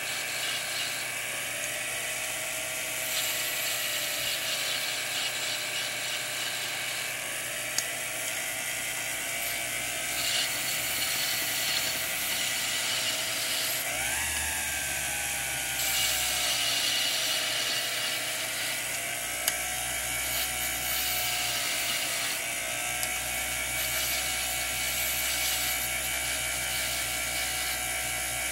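Small jeweler's lathe running with a steady motor whine that wavers slowly in pitch, while a hand graver takes light cuts on spinning brass stock with a scratchy hiss. A few sharp clicks are heard along the way.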